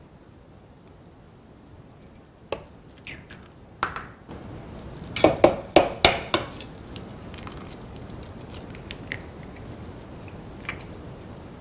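Knocks and clatter of a plastic measuring jug and mixing bowl handled on a kitchen worktop while eggs are separated. A quick run of sharp knocks comes about five to six seconds in, with a few fainter clicks before and after.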